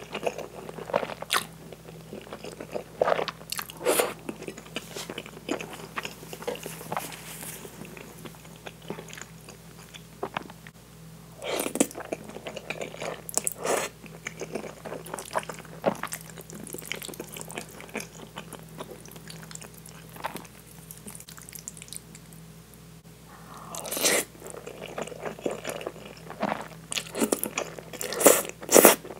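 Close-miked eating of meat sauce spaghetti: strands slurped in and chewed, with wet smacking mouth sounds in irregular clusters, busiest near the end.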